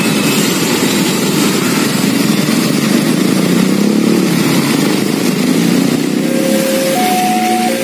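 Motorcycle and car traffic passing on a wet road, with engines revving and tyres hissing. About six seconds in, the railway level crossing's warning alarm starts, a steady two-tone signal alternating between a lower and a higher note, which warns that a train is coming and the barriers are about to close.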